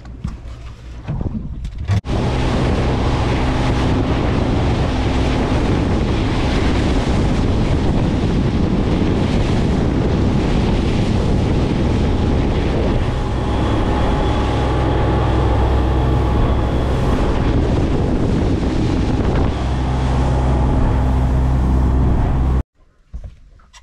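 Boat under way: an Evinrude outboard engine running steadily, with wind on the microphone and water rushing past the hull. It starts abruptly about two seconds in and cuts off suddenly near the end.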